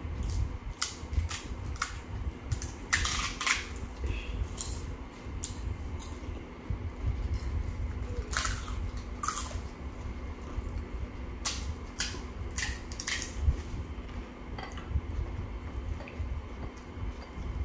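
Crisp fried fuchka (panipuri) shells cracking as fingers poke them open and crunching as they are bitten: a scatter of short, sharp cracks, several in quick clusters, over a steady low hum.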